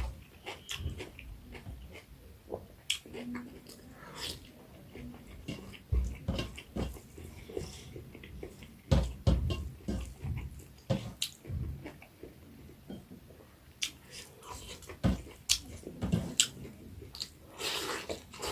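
A person chewing and eating pork curry close to the microphone: irregular wet smacks and clicks of chewing and biting, with a longer slurp or breath near the end.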